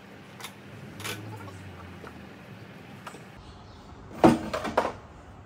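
Fuel tank of a 2018 Triumph Tiger 1200 being lifted and slid off the motorcycle: a few light clicks, then a cluster of loud knocks and clatter about four seconds in.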